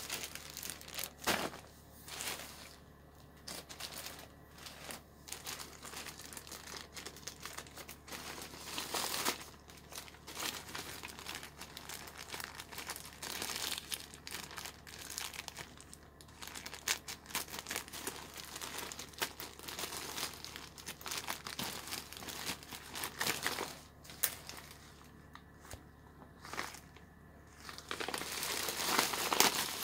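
Black plastic courier pouch crinkling and rustling as it is handled and cut open, with bits of tearing; the crinkling grows louder near the end as the contents are pulled out.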